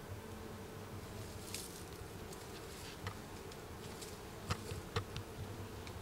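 Honeybees buzzing steadily around an opened, very active hive, with a few short light clicks about three seconds in and again near the end.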